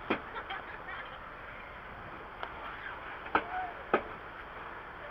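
A few sharp clicks and knocks over a steady hiss of background noise.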